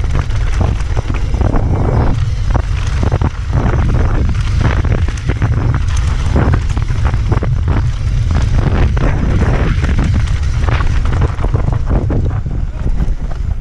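Mountain bike riding fast down a dry dirt trail: heavy wind rumble on the camera microphone, with a dense string of knocks and rattles as the tyres and bike hit bumps and stones. It eases slightly near the end.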